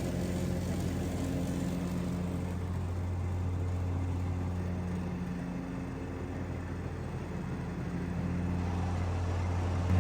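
Skag zero-turn mower engine running steadily under mowing load, a low, even drone.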